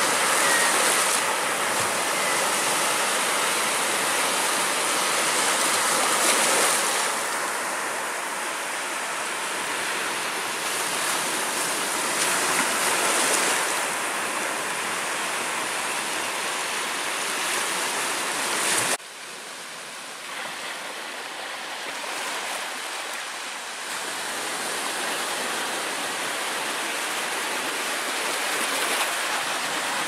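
Black Sea surf washing onto the shore, a steady rushing hiss with slow swells. It drops suddenly to a quieter level about two-thirds of the way through.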